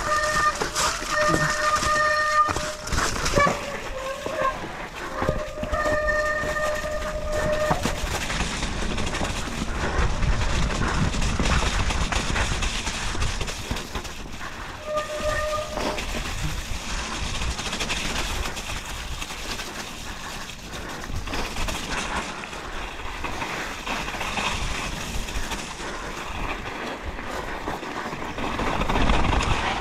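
Mountain bike descending a muddy trail, its brakes squealing in a steady high tone in stretches: a few seconds at the start, again about six seconds in, and briefly about fifteen seconds in. Between the squeals come the clatter of the bike over rough ground and rushing wind on the microphone.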